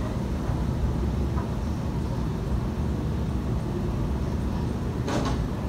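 Steady low background rumble, with a short rustle about five seconds in.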